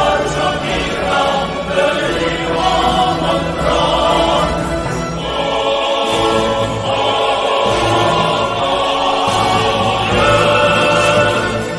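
Choral music: a choir singing long held chords that shift every second or two.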